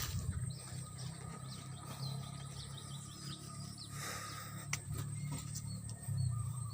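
Birds chirping outdoors: a quick run of short high calls through the first few seconds and scattered calls later, over a steady low rumble.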